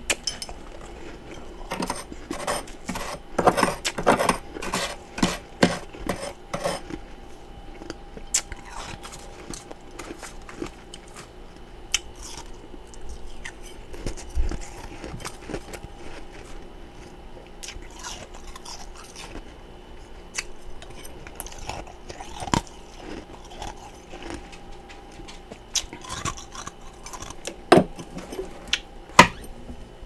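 Metal spoon scraping and scooping into thick, powdery freezer frost, crunching as it digs. There is a quick run of crunches a couple of seconds in, then scattered single scrapes and taps, with two sharper ones near the end.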